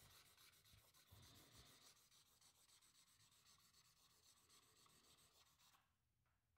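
Very faint rubbing of a drawing tool across sketchbook paper, with a few soft knocks in the first half. It fades out shortly before the end.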